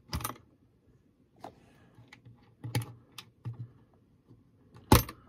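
Small metal hasp latches on a wooden box being worked open by hand: a series of short sharp clicks and taps, the loudest one near the end.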